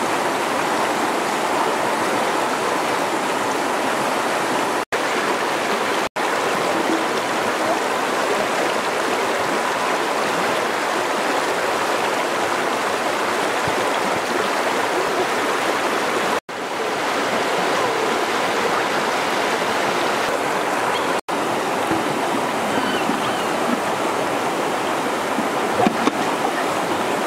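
Fast, shallow river rushing over stones: a steady, even wash of water noise. It cuts out for an instant four times.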